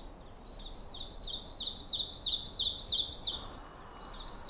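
Black-and-white warbler singing: a high, thin run of quickly repeated squeaky notes. One song ends about three seconds in and the next begins straight after.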